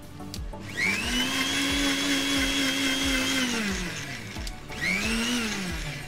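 Electric mixer grinder with a steel jar blending whipped cream, milk and coffee powder into thick cold coffee. The motor whines up to speed, runs steadily for about three seconds and winds down, then gives a second short burst that rises and falls.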